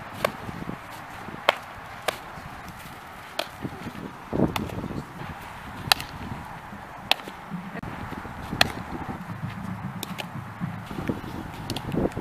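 Softballs smacking into a leather fielder's glove, a dozen or so sharp pops at irregular intervals of about a second, with a couple of duller thuds among them.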